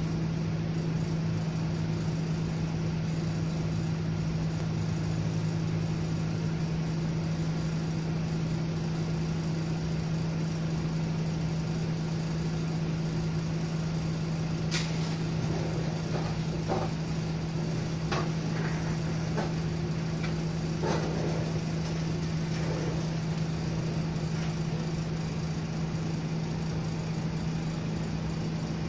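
A steady low hum holding one pitch throughout, like an idling engine, with a few sharp clicks and knocks between about halfway and two-thirds of the way through.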